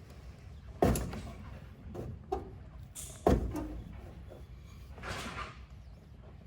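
Filter wrench clunking on a stubborn spin-on fuel/water separator filter as it is forced loose: two loud sharp knocks about two and a half seconds apart, lighter clunks between them, and a brief rustle near the end.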